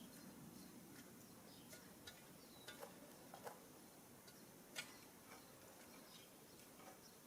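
Near silence with a few faint, scattered light clicks and ticks.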